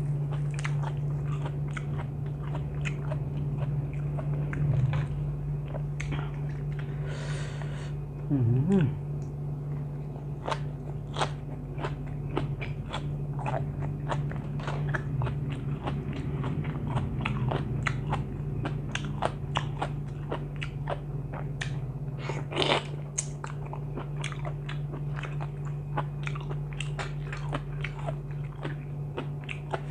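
A person chewing and crunching food close to the microphone: a run of many small crisp crunches and mouth clicks over a steady low hum.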